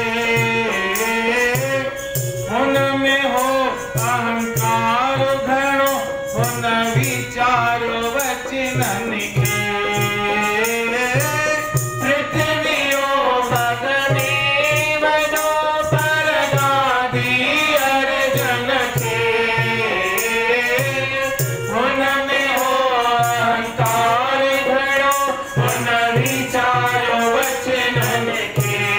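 A man singing a Hindi devotional bhajan into a microphone, accompanied on a keyboard, over a steady percussion beat of about two strokes a second with a rattling shaker-like sound.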